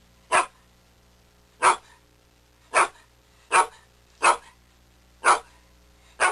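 A dog barking: seven short, sharp barks, spaced about a second apart.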